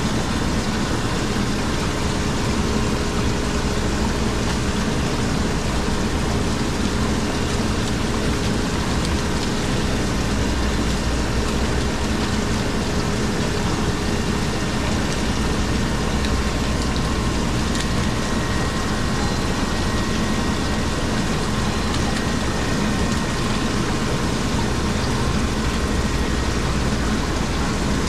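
Steady machinery noise: an even hiss with a low hum and a few faint steady tones underneath, unbroken throughout.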